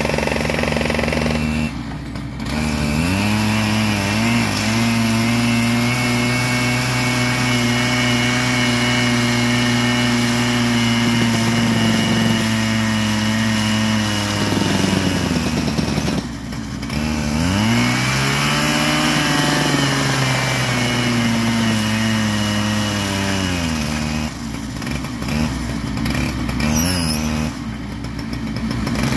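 Gas-powered two-stroke rail saw cutting a steel rail: the engine revs up and holds at full speed as the abrasive disc grinds through, eases off in the middle, then revs up and cuts again before winding down near the end.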